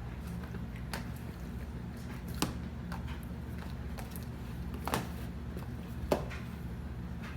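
Glitter slime being squeezed and stretched by hand, giving a few sharp little pops and squelches over a steady low hum.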